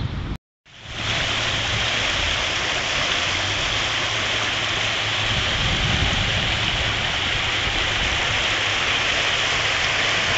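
Swollen, flood-high river rushing beneath the bridge: a steady, loud hiss of water that starts just under a second in after a brief cut-out.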